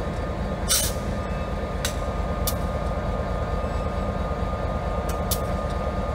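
EMD GP50 diesel locomotive running with a steady low rumble from its two-stroke engine as it moves slowly with a tank car, with a few sharp clicks scattered through, the loudest about a second in.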